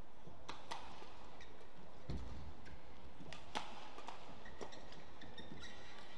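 Badminton rally: rackets sharply striking the shuttlecock at uneven intervals, with players' footwork on the court, including a dull thud about two seconds in.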